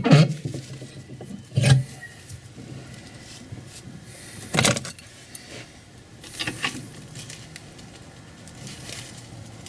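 A few sharp metallic clicks and knocks, with two close together about two thirds of the way through, from a spanner tightening a bolt over washers to draw a longer wheel stud into a rear hub, over a low steady hum.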